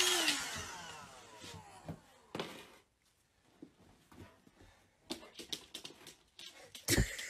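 Scattered light taps and clicks of a dog's claws and a tossed toy on a hardwood floor, with a heavy thump near the end. A fading tone falls in pitch during the first second.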